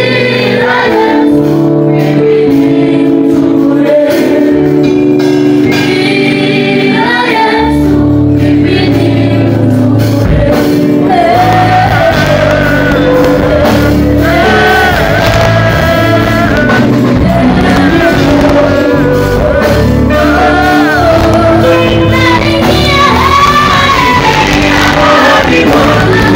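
Live amplified gospel worship singing: a woman's lead voice with a group of singers over band backing. A heavy bass part comes in about a third of the way through.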